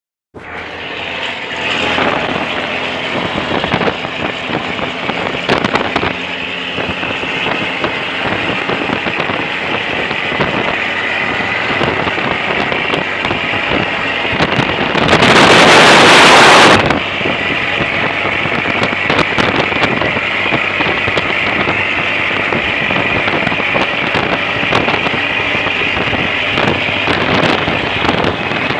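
An engine running steadily and evenly. About fifteen seconds in, a loud hissing rush drowns it out for nearly two seconds.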